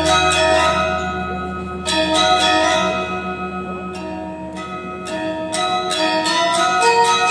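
Balinese gamelan angklung ensemble playing a classical palegongan instrumental piece: many struck bronze metallophones and gong-chimes ringing in a dense rhythm, thinning a little in the middle and building again near the end.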